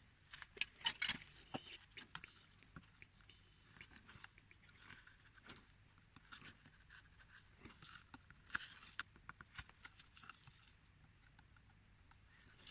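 Small hand carving tool cutting and scraping at a carving in short, irregular strokes. Crisp scrapes and clicks, with a louder cluster about a second in and another around eight to nine seconds.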